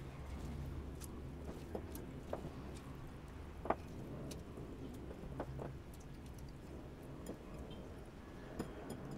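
Soft wet squishing and small clicks as soaked eggplant strips are handled, squeezed and mixed by hand in a bowl of vinegar water, over a low steady hum.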